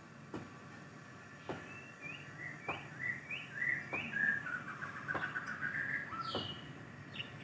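A songbird sings a run of short, quick chirped notes that melt into a warble, starting about two seconds in and stopping near the end. Footsteps sound steadily underneath, about one step every second.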